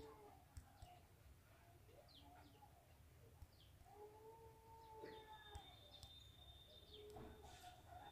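Near silence, with faint scattered chirps and a few drawn-out faint calls in the background.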